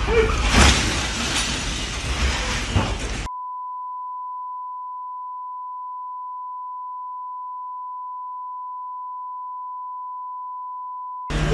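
Street commotion from a phone recording of a ram raid: loud rough noise with a few sharp bangs. After about three seconds it cuts off abruptly to a single steady beep tone held at one pitch for about eight seconds.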